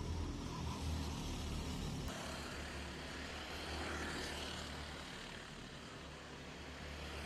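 Rental kart engines running as karts go by on the track, a steady low drone. The sound changes abruptly about two seconds in.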